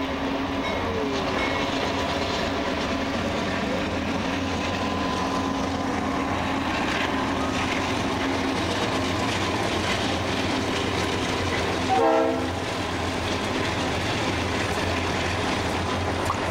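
Freight train led by Conrail diesel locomotives passing, engines running steadily with wheels rumbling on the rails. About twelve seconds in, a horn gives one short blast.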